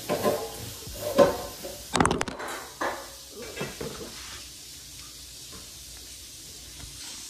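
Kitchen clatter: a few knocks and clinks of dishes and utensils in the first three seconds, then a fainter steady hiss.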